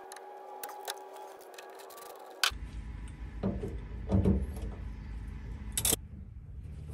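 Hand tools working on battery cable terminals: faint clicks and small metal clinks over a low steady hum, then, about two and a half seconds in, a low rumbling handling noise with a few louder knocks as the wrenches work the connections.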